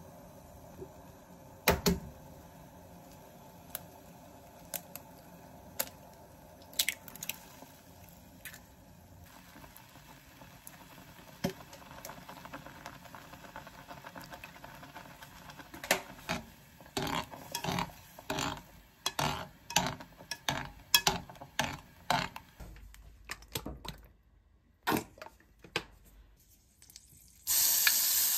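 Scattered clinks and knocks of kitchen utensils against pots, with a quick run of clicks in the second half. About a second before the end, chopped kimchi goes into a hot pan and starts sizzling loudly.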